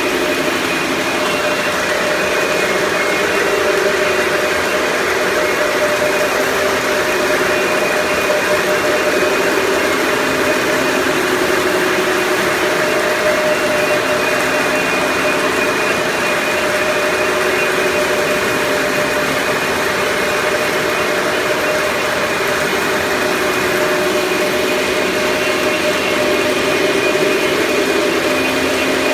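Steady machine noise: an even hiss with a few constant humming tones.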